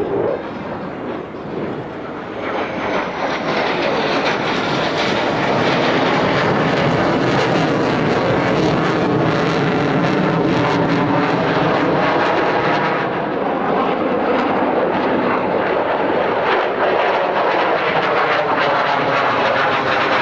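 Mitsubishi F-2 fighter jet noise, a loud crackling turbofan sound that builds over the first few seconds, holds loud, and falls away near the end as the jets pass.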